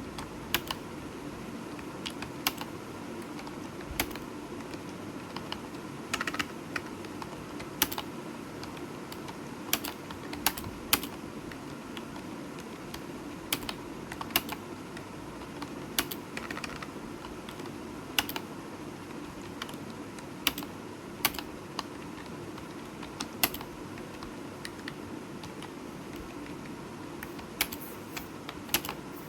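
Computer keyboard keys clicking in irregular, scattered keystrokes over a steady low hum.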